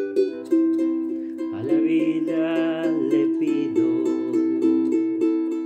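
Ukulele strummed in a steady rhythm, with a man's voice singing one phrase over it from about a second and a half in.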